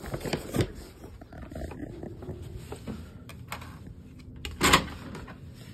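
Clicks and a loud clunk of a hotel room door being unlocked and opened, with a few light ticks before the single loud clunk about three-quarters of the way through.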